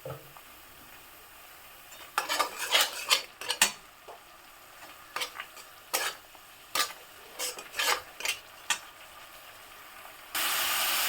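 A spoon stirring and scraping ground spice paste in a pan of hot mustard oil, in bursts of short strokes. About ten seconds in, a loud steady sizzle of frying starts suddenly.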